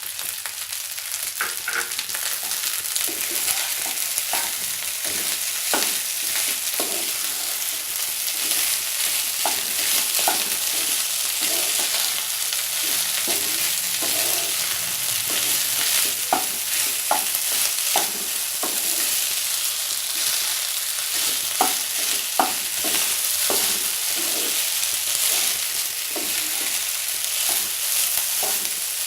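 Vegetable fried rice sizzling in oil in a kadhai while it is stirred and tossed with a spatula, with a steady frying hiss and frequent short scraping clicks of the spatula against the pan, a few sharper clinks past the middle.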